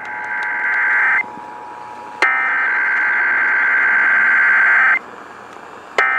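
Emergency Alert System SAME header data bursts received over the radio, the buzzy digital header that opens an EAS alert. One burst ends about a second in, a longer burst of nearly three seconds follows after a one-second gap, and the next repeat starts near the end, each with a click at its onset, over steady radio hiss.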